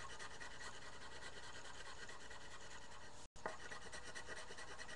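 Coloured pencil rasping rapidly back and forth on paper as an area of a drawing is shaded in. The sound cuts out completely for an instant a little over three seconds in.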